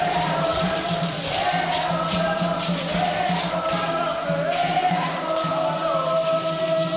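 A group of women singing a song together in unison, with shaken rattle-type percussion keeping a steady beat underneath.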